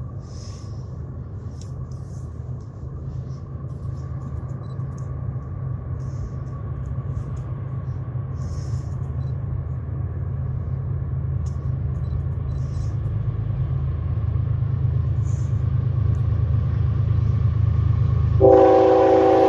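CSX ES44AC-H diesel locomotives approaching at the head of a freight train, their low engine rumble growing steadily louder. Near the end the locomotive's multi-note air horn sounds loudly.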